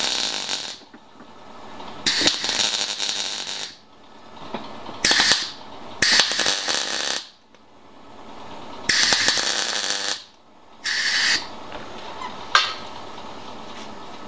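Arc welding a steel patch panel into a car's rear wheel arch: about seven short bursts of crackling weld, each lasting well under two seconds, with pauses between them. The last burst, near the end, is a brief tack.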